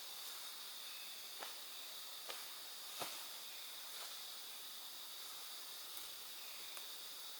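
Steady high-pitched drone of insects over a soft hiss, broken by a few faint sharp clicks, the clearest about three seconds in.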